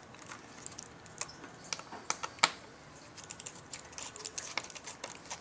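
Light, scattered clicks and taps of a small hand tool and fingers on an opened laptop's screws, connectors and casing. The strongest single click comes about two and a half seconds in, followed by a run of quick small ticks.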